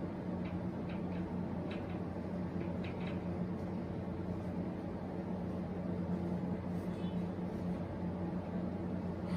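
Whiteboard marker squeaking in a run of short strokes for the first three seconds as figures are written, over a steady low hum.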